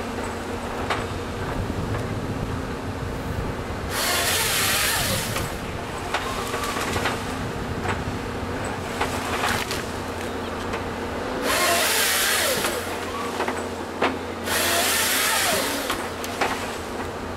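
Volvo EC210 excavator's diesel engine running steadily under hydraulic load while its LogMax 7000XT harvester head processes a eucalyptus stem. Three loud bursts of sawing, each about a second and a half, come about four, eleven and a half and fourteen and a half seconds in as the head's chain saw cross-cuts the log, with sharp knocks of wood and steel between them.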